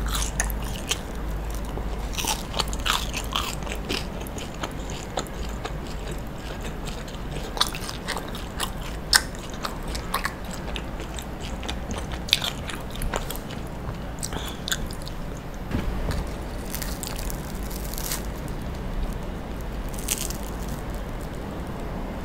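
A person chewing grilled mochi close to the microphone: irregular clicking mouth sounds and small crunches of the toasted crust, over a steady low hum.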